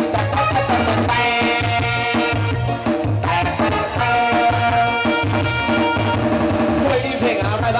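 Small live band playing an upbeat instrumental passage through a PA system, with a steady bass beat under held melodic lines.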